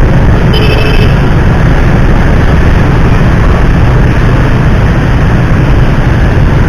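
Loud, steady low rumble of riding along in traffic beside a bus, engine and road noise mixed with what sounds like wind on the microphone, with a short faint horn note about half a second in.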